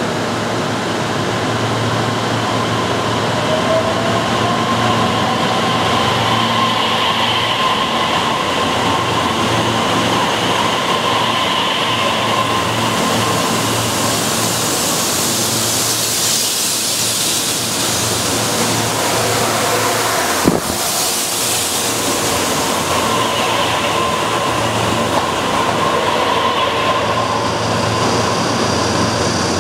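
Korail O-Train pulling out and passing close by: a steady running hum with a faint rising whine a few seconds in, then a surge of wheel and running noise as the cars go past. A single sharp knock comes about two-thirds of the way through.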